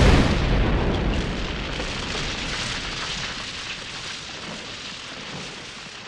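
Explosion sound effect: a sudden deep boom, then a long rumbling, hissing tail that slowly dies away.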